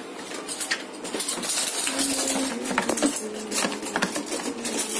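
Steel spoons and cutlery clinking and rattling in a metal cutlery rack as a small spoon is picked out, a string of sharp clinks.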